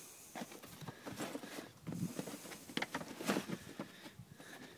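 Wooden frame pieces of a folding kayak knocking and scraping against the hull as they are tugged out, heard as a string of short, irregular knocks with handling rustle.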